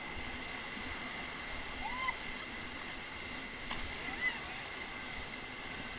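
Ocoee River whitewater running past the raft as a steady rushing hiss, with a few faint short chirps about two and four seconds in.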